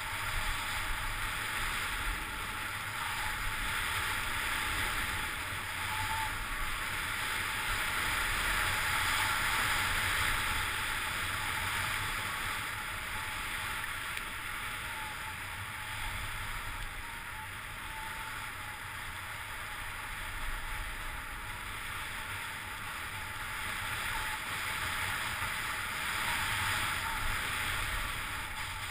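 Steady rushing hiss of sliding fast down a packed-snow track, with air rushing over the camera, swelling and easing as the speed changes.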